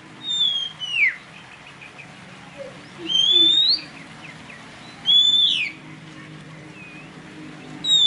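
Songbird whistling loud, clear notes, each lasting about half a second. The first slides down soon after the start, the next rises around three seconds in, a third falls around five seconds in, and another begins at the very end.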